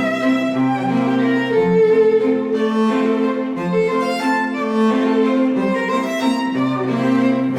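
Background music: bowed strings, violin over cello, playing long held notes.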